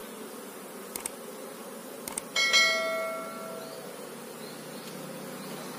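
Apis cerana bees buzzing steadily around an open hive box. Two short clicks about one and two seconds in are followed by a bell ding that rings out and fades over about a second and a half: the click-and-bell sound effect of a subscribe-button animation.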